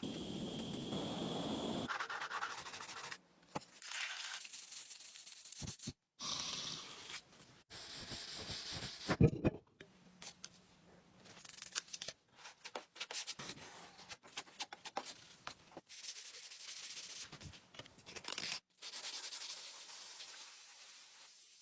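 Abrasive rubbing and sanding on a workpiece, in short clips joined by abrupt cuts.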